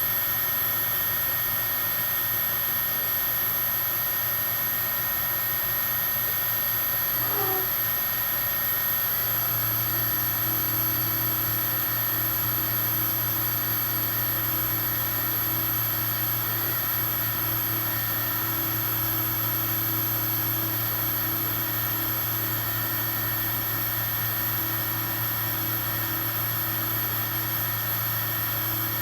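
Homemade mini lathe running steadily, with a continuous motor hum and whine. About nine seconds in, the hum deepens and strengthens, then holds steady.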